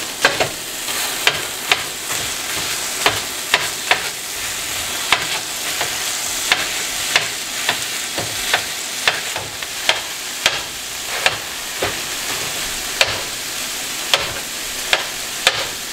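Ground-beef patties and onions sizzling on a stovetop griddle while metal bench-scraper choppers hack into the meat, striking the griddle surface in sharp clacks about every half second.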